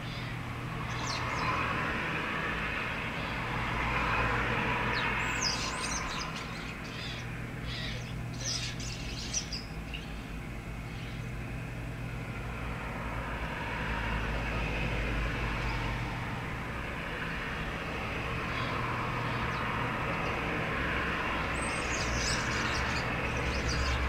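Road traffic passing, a wash of noise that rises and fades in two long swells, with a few short bird chirps over it.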